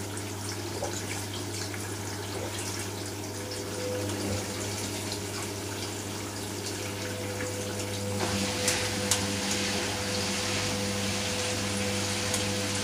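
Hoover Nextra front-loading washing machine in the wash phase of a mixed-fabrics cycle: net curtains tumbling through water in the drum over a steady machine hum. About eight seconds in, the water noise grows louder and stays up.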